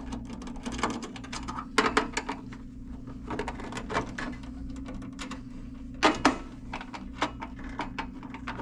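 Nuts being undone with a hand tool on the sheet-metal plates of a range hood: many quick, irregular clicks, with louder metal clanks about two seconds and six seconds in.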